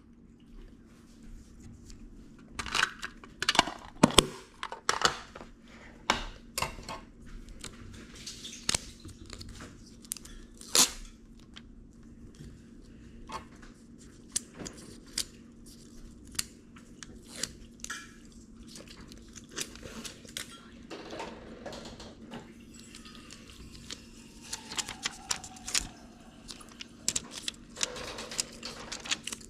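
Close-up handling of paper and sticker material: irregular crinkling, tearing and small taps and clicks, over a faint steady hum.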